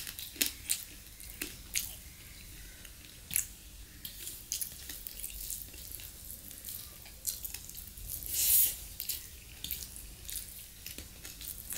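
Close-up eating sounds: wet mouth clicks and smacks of chewing rice and chicken curry, with fingers squishing the rice in a steel bowl. A louder breathy rush comes about eight and a half seconds in.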